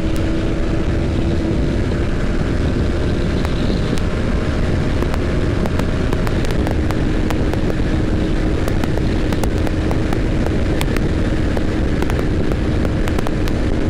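A TVS Apache RR 310's single-cylinder engine running at steady revs at highway speed, under heavy wind rush on the helmet microphone. The engine note eases slightly about six seconds in.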